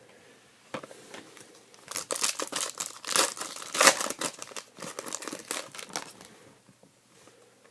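Crinkling and tearing of a trading-card pack wrapper as it is torn open and handled, a dense crackle lasting about four seconds that starts about two seconds in and is loudest in the middle.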